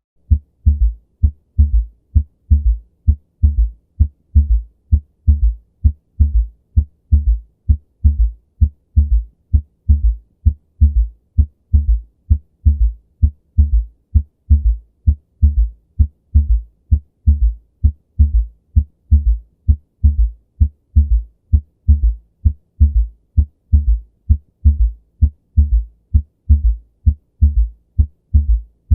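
Heart sounds heard through a stethoscope with an S3: low thuds repeating in a steady rhythm, each beat's S1 and S2 followed by a soft extra early-diastolic sound (a gallop). An S3 is normal in children, young adults, athletes and pregnancy, but in older adults it may signify heart failure or cardiomyopathy.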